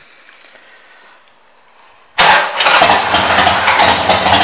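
2005 Harley-Davidson Sportster 1200 Custom's air-cooled V-twin firing up through an aftermarket exhaust about two seconds in, after a faint quiet start, then running loudly at idle.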